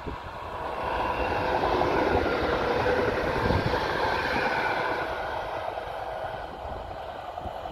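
Electric multiple unit LM4268-003 passing. Its running noise, a steady rush with a faint whine, swells to a peak about two to four seconds in and then slowly fades. Wind rumbles on the microphone underneath.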